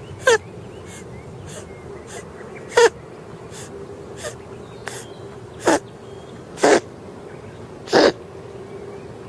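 A calico kitten sneezing five times in a row: short, sharp sneezes a second to three seconds apart, closer together near the end. The owner thinks something may have got into its nose.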